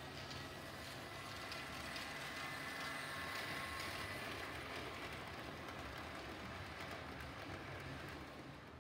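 Model electric train running on a layout's track: a motor whine with a light clatter of wheels on rails. It grows louder as the train passes close, around the middle, and fades near the end.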